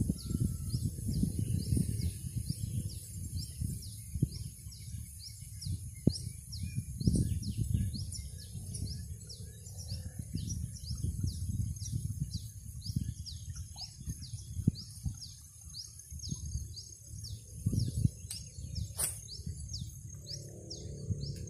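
Open marsh ambience: a short, high, falling chirp repeated evenly about two to three times a second from a bird, over a steady high-pitched whine, with an irregular low rumble underneath that is the loudest sound.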